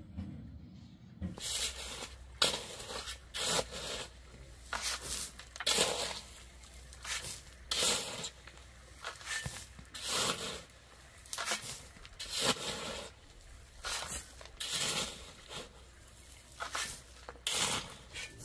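Shovel scraping and digging into soil and gravel, stroke after stroke, roughly one to two a second, starting about a second in.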